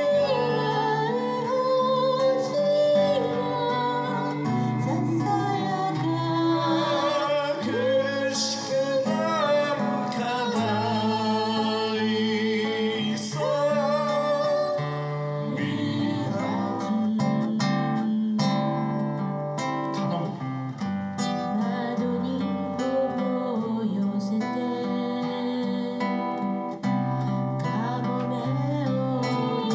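Acoustic guitar strummed to accompany a man and a woman singing a song together.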